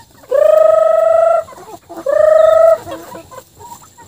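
Chicken giving two long, loud, held calls, the first rising into a steady pitch and lasting about a second, the second shorter and starting about two seconds in.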